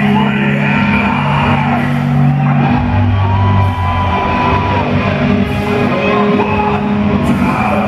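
Heavy metal band playing loud live music in a large concert hall, the bass notes held steady under the guitars.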